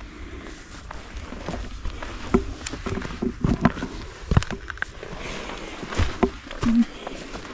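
A hiker's footsteps on grass and rock: irregular steps, scuffs and knocks over a low rumble, with a brief low tone near the end.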